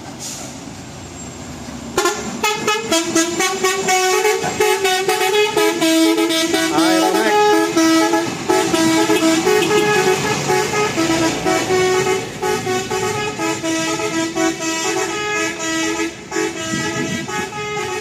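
A truck's musical multi-tone horn plays a tune of held notes that step up and down. It starts suddenly about two seconds in and sounds loudly until near the end, over the truck's engine running.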